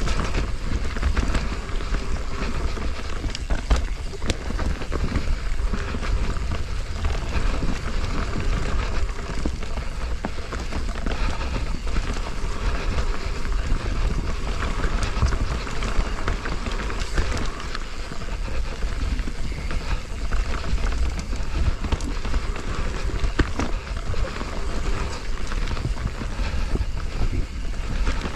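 Mountain bike riding fast down a damp dirt singletrack: tyres rolling on the dirt, wind buffeting the action-camera microphone with a heavy low rumble, and the bike clattering and knocking over bumps all the way.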